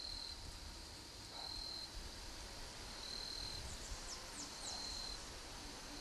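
Insect calling in high, steady-pitched trills about half a second long, repeated about every one and a half seconds, over faint outdoor background noise. A few quick high chirps come about four seconds in.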